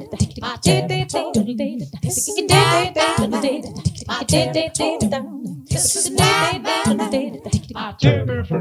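A cappella female singing: layered vocal lines with wavering held notes over a steady percussive beat.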